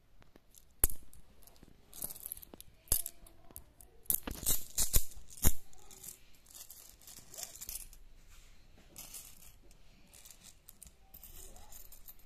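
Pakistani rupee coins clinking and jingling as they are handled on a cloth: a few sharp clinks, a loud cluster of clinks about four to five and a half seconds in, then softer jingling as the coins are scooped together into piles.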